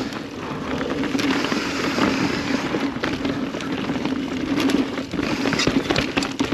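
Kona Process X mountain bike descending a rough, snowy trail at speed: steady tyre and wind rush with a low hum, broken by frequent sharp clicks and rattles from the bike jolting over roots and rocks, more of them in the second half.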